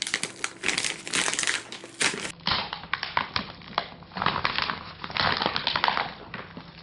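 Clear plastic bag wrapped around a new modem-router crinkling and crackling in irregular bursts as hands handle and pull at it.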